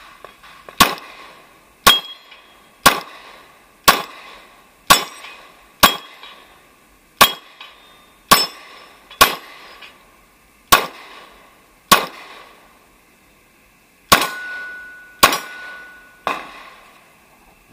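Glock 23 .40-calibre pistol firing fourteen shots, roughly one a second, with a pause of about two seconds before the last three.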